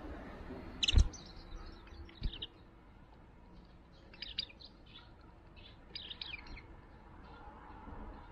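Japanese white-eyes giving short, high chirping calls in quick clusters, about a second in, around four seconds and again around six seconds. A sharp low thump about a second in is the loudest sound, with a smaller one just after two seconds.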